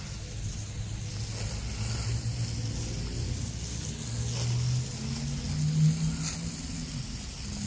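Tru-Cut portable bandsaw sawmill running, its engine making a steady low hum under a hiss; the engine note rises about four to five seconds in.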